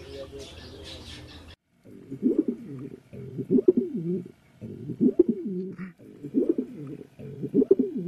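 Domestic pigeons cooing: a run of low, rolling coos, each about a second long, repeating every second and a half or so from about a second and a half in.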